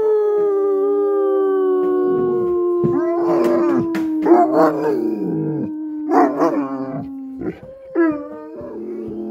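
A mastiff howling: one long, drawn-out howl that slowly sinks in pitch, with shorter wavering cries layered over it from about three seconds in, growing softer near the end.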